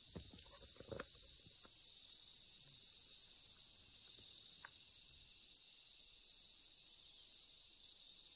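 A steady chorus of crickets chirping, with a few soft knocks and taps in the first second or so.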